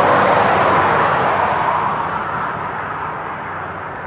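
Jet engine noise of an Emirates Boeing 777-300 departing: a loud, broad rush that is strongest at the start and slowly fades.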